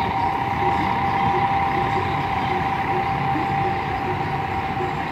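City buses running at a bus terminal: a steady engine and traffic hum with a constant whine over it, no distinct events.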